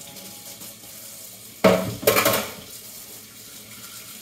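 Kitchen faucet running into a stainless steel sink while a paint-stripped die-cast car body is rinsed under the stream. A loud splashing rush lasts about a second near the middle, then the flow goes back to a steady patter.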